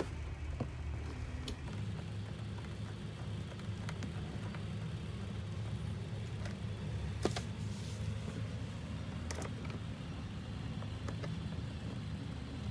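Light clicks and taps of plastic dashboard parts and a small screwdriver being handled during assembly, one sharper click about seven seconds in, over a steady low background rumble.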